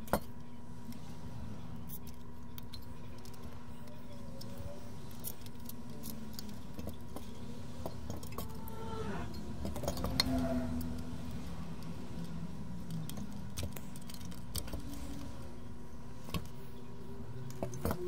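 Scattered small metallic clicks and clinks as a car engine computer's metal case and circuit board are handled and turned over on a workbench, over a steady electrical hum.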